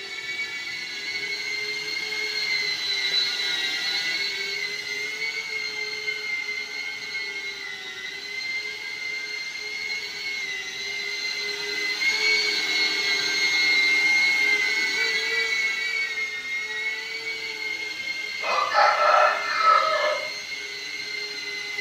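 Happymodel Cine8 cinewhoop running on Gemfan D51 five-blade ducted props, giving a steady high whine whose pitch drifts slightly as the throttle changes. A rooster crows once near the end.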